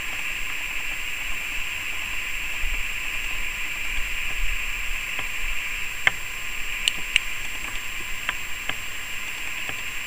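Steady hiss with a few sharp clicks a little past the middle, the loudest a quick double click of a dog-training clicker, press and release, marking the dog for holding its position on the platform.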